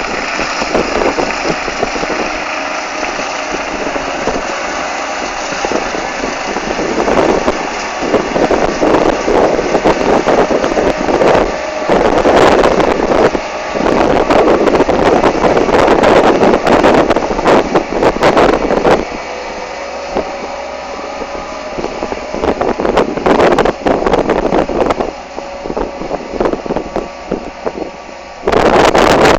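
Heavy sugar beet harvesting machinery running, a continuous engine drone with a rattling clatter over it. It grows louder for a stretch in the middle, eases off, and jumps up sharply just before the end.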